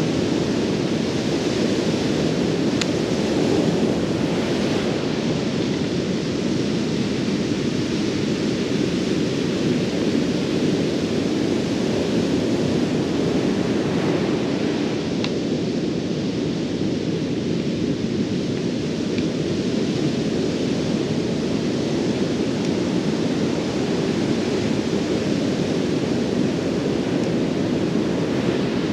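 Steady roar of surf breaking on a beach, mixed with wind noise on the microphone. A couple of faint clicks come through, about three seconds in and again near the middle.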